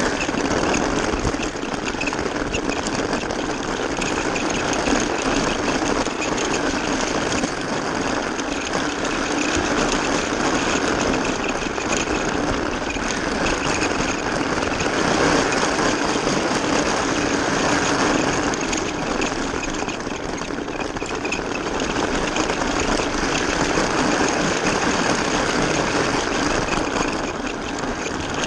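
Small electric motor of a battery-powered Magic Tracks toy car whirring steadily as it drives a train of toy cars along flexible plastic track, with the plastic wheels rattling on the track, heard up close from the train's back car.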